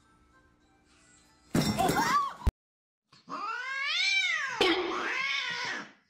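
A cat's long meow, rising and then falling in pitch, running on into a rougher, noisier cry. Before it, a short loud burst of noise cuts off with a click, followed by a moment of silence.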